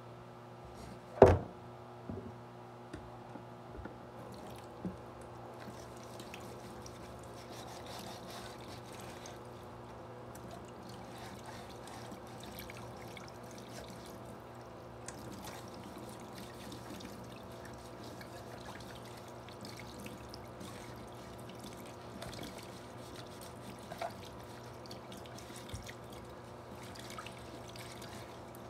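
Kitchen tap running into a sink as a blender jar and a red plastic piece are rinsed under it, a steady splashing trickle. A loud sharp knock about a second in and a few lighter knocks later, as the pieces are handled in the sink.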